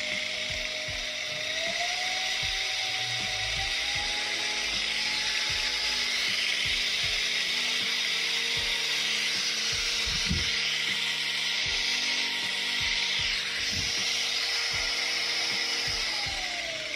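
Edon EP-XND180 1800-watt rotary polisher running free with its backing pad spinning. Its motor whine rises in pitch over the first few seconds as the speed is stepped up, holds steady, then falls away near the end as it slows. Inside the machine there is a very slight growl, which the owner puts down to the greasing and not to a fault.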